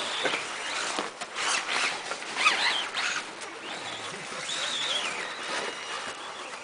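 Radio-controlled model rally cars driving through snow, their small motors whining up and down in pitch as they speed up and slow, with faint scraping and clicks.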